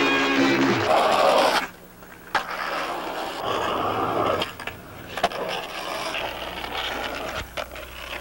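About the first second and a half is the end of a music-and-speech passage, which cuts off abruptly. Then a skateboard rolls on asphalt, with stretches of wheel hiss, scraping and a few sharp clacks of the board.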